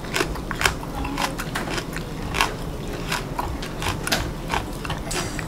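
Raw green onion (daepa) stalk being chewed close to the microphone: an irregular run of crisp crunches, about four a second.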